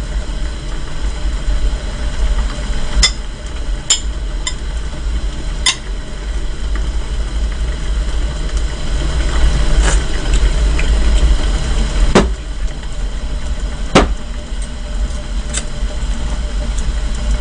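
Steady low rumble of a lidded pot of beef seaweed soup boiling on high heat, with sharp clicks of metal chopsticks against dishes every few seconds.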